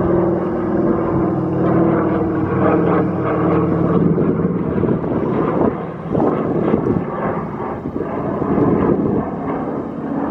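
Propeller airplane flying over, its engine droning steadily at first and then rougher and more uneven through the second half.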